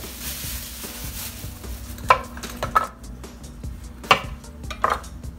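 A plastic bag rustling, then a chef's knife cutting through a cucumber onto a wooden cutting board: four sharp chops, the first about two seconds in.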